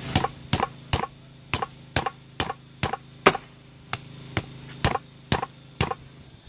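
Meat cleaver chopping through a large whole fish on a wooden cutting board: a steady run of sharp chops, about two a second, that stops shortly before the end.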